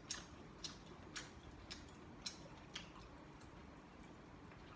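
Faint, sharp crunches of crispy fried chicken being chewed, about two a second.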